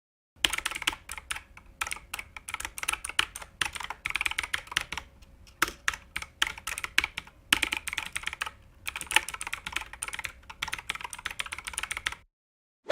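Rapid typing on a computer keyboard: a fast, irregular run of key clicks with short pauses, stopping abruptly near the end.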